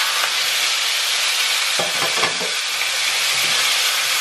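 Chicken pieces sizzling steadily in a frying pan in the fat rendered from their own skin, no oil added. About two seconds in, a spatula scrapes and knocks against the pan as the pieces are turned.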